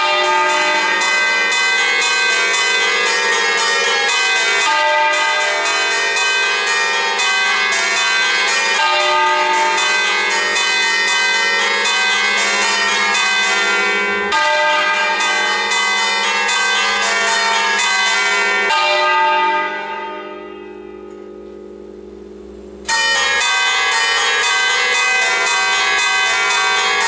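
A ring of six swinging church bells tuned to a slightly flat E-flat, rung 'alla romana', with dense overlapping strikes and a long hum. About two-thirds of the way in the strikes stop and the bells' hum fades; a few seconds later the full peal starts again abruptly.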